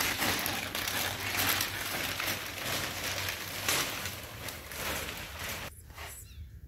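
Plastic sheeting crinkling and rustling as a wrapped suspension K-frame is unwrapped by hand, dying down about a second before the end.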